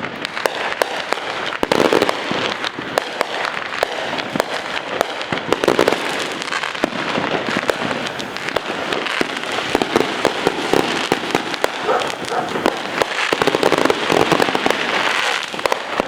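Many consumer fireworks and firecrackers going off at once: a dense, unbroken crackle of pops and bangs.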